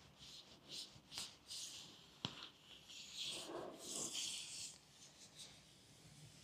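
Faint rubbing and swishing as a hand presses and slides down a flexible PVC corner bead freshly glued onto an outside wall corner, with one sharp click about two seconds in.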